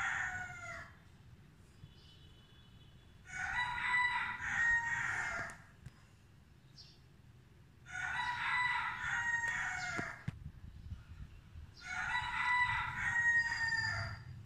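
Rooster crowing: the end of one crow at the start, then three full cock-a-doodle-doos of about two seconds each, roughly four seconds apart.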